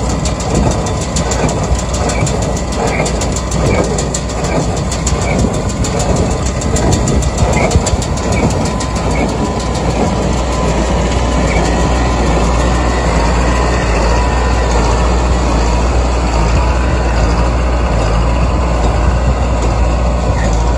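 Self-propelled small square baler running: a steady engine rumble under the rapid clatter of the baling mechanism, the clatter thinning out about halfway through.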